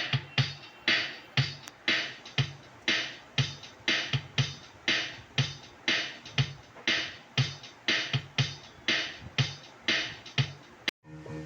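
Electronic drum-machine rhythm with a steady beat, about two hits a second, mixing low thumps and brighter hits. It cuts off abruptly near the end.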